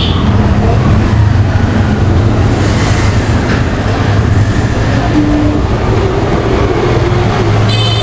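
A loud, steady low drone with a noisy haze over it, unbroken throughout.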